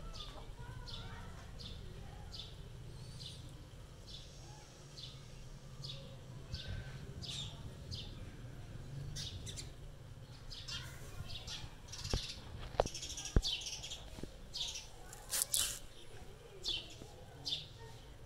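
Birds chirping over and over in short, high calls. Three sharp clicks come close together a little past the middle.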